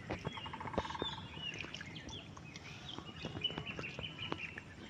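Birds chirping with many short calls and a brief rapid trill about half a second in, over scattered light clicks and splashes in shallow muddy water.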